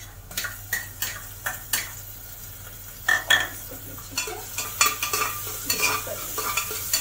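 Metal spoon scraping and clinking against the inside of a pressure cooker as ginger-garlic paste is stirred into onions frying in ghee, with a sizzle from the pan. The clicks are irregular, several a second, and the loudest clatter comes about three seconds in.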